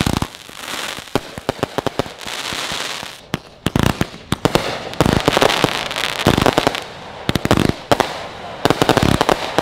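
Consumer fireworks going off: a string of sharp pops and cracking bangs, some in quick clusters, over the fizzing hiss of fountains and rising shots.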